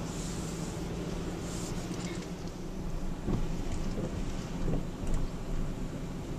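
Car cabin noise while driving on a flooded, wet street: a steady engine and road hum with water hissing under the tyres, and two brief knocks in the second half.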